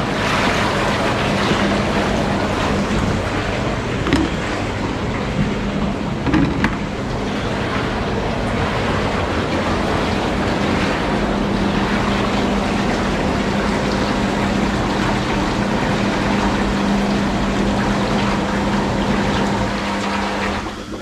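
Platinum Spas hot tub's massage pumps running, the jets churning the water with a steady rushing and a steady low hum as they mix in freshly added chlorine. The rushing stops abruptly near the end.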